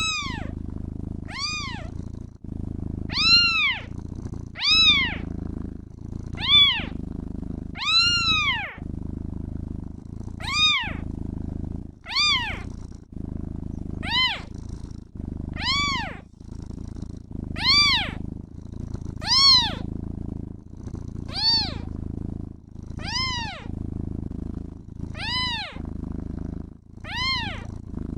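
Kitten meowing over and over, about one meow every second and a half, each rising then falling in pitch, over steady purring.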